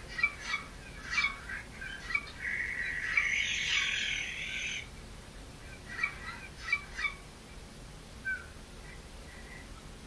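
Bird calls: a quick series of short, sharp chirps, then a harsh, raspy call of about two seconds, then more sharp chirps and a few softer single notes near the end.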